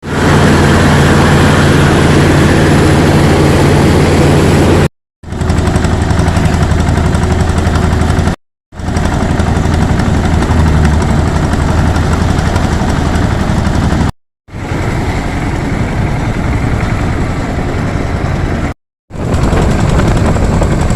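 Engine of a mobile rice-milling machine running steadily with a low, even drone, heard in several short takes separated by brief total silences.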